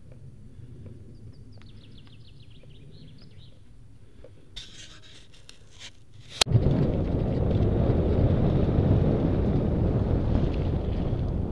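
Cannondale bike setting off on a forest dirt trail. After a quiet stretch with a bird twittering faintly, a sharp click comes about six seconds in. Then comes loud, steady wind buffeting on the microphone, mixed with tyres rolling over the gravel and leaf litter.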